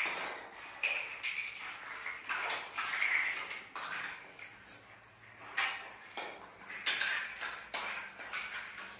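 Otter making a series of short, high-pitched squeaks and chirps, about one a second.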